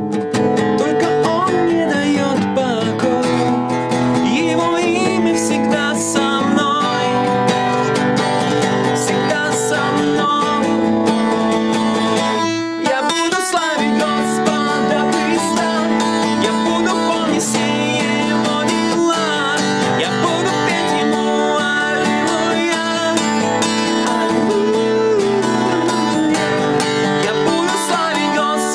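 Steel-string acoustic guitar played in chords with a man singing a worship song along with it; the playing dips briefly about halfway through.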